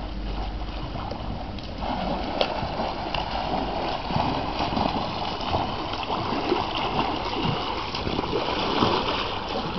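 Pool water splashing and lapping as hands paddle alongside an inflatable air mattress, a steady irregular splashing that picks up about two seconds in.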